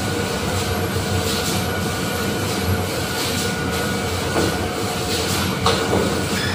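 Industrial production-line machinery running steadily, with a constant hum and drone, and a few sharp clanks in the second half.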